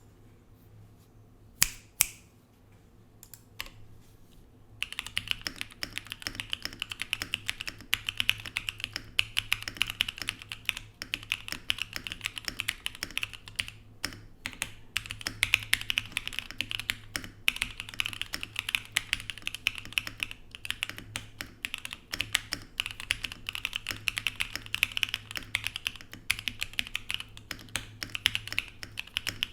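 Mode Sonnet mechanical keyboard with lubed Durock POM switches, an aluminium plate and PBT keycaps being typed on. There are a few single keystrokes in the first seconds, two of them loud, then continuous fast typing from about five seconds in.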